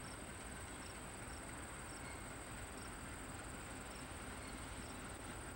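Crickets trilling in a steady high pulsing chorus, with a short higher chirp repeating roughly once a second, over a faint low background hiss.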